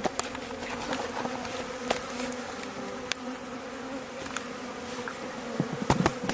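Honeybees buzzing around a newly stocked top bar hive, a steady hum from many bees in flight. Scattered sharp clicks and taps run through it, with a cluster of louder ones near the end.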